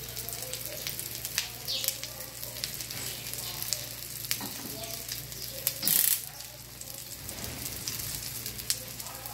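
Omelette of beaten egg frying in an oiled nonstick frying pan over a gas burner, sizzling steadily with small crackles as its underside browns. There is a brief louder burst about six seconds in.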